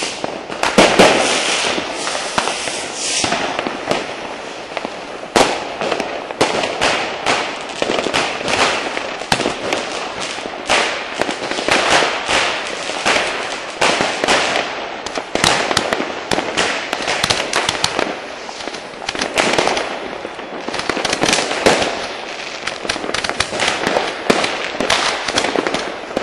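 New Year's Eve fireworks and firecrackers going off in a dense, unbroken series of bangs and crackles.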